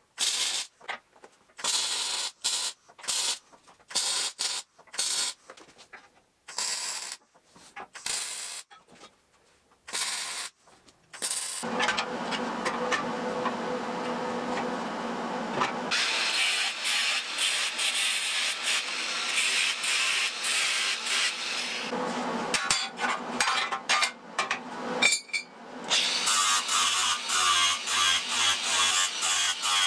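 MIG welder laying a series of short tack welds on steel tube: about a dozen brief crackling bursts with pauses between them over the first eleven seconds. A long stretch of continuous harsh noise follows. About four seconds from the end, a cordless angle grinder starts grinding steel.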